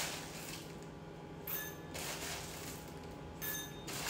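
Chunks of rock sugar clinking into a bowl in two short pours, each about half a second long with a light ringing note.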